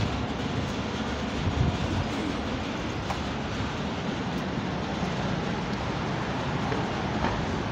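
Steady low rumble of outdoor street noise, with wind buffeting the phone's microphone as it is carried along.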